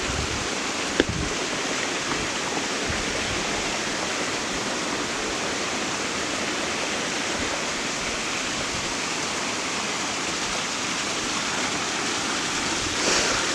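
Steady rush of a small stream running down over rocks, with a single short click about a second in.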